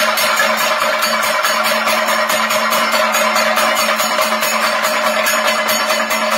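Thayambaka ensemble of chenda drums played with sticks in a fast, dense, unbroken roll. Bright metallic strokes, likely ilathalam hand cymbals, keep an even beat of about eight a second over the drumming.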